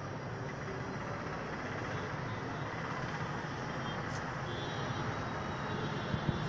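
Steady outdoor background din with a low rumble, with faint voices in it.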